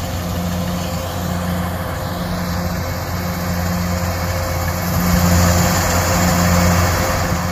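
Kubota DC-108X combine harvester running steadily under load while it cuts and threshes rice: a diesel engine hum with the rush of the threshing and cutting gear. It gets a little louder a little past the middle.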